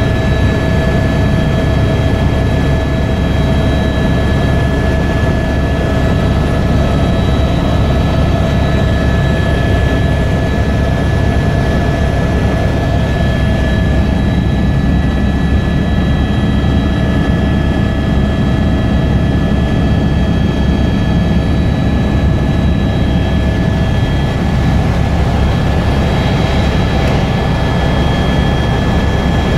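Helicopter in cruise flight heard from inside the cabin: a loud, steady rotor and engine drone with a constant high-pitched whine on top.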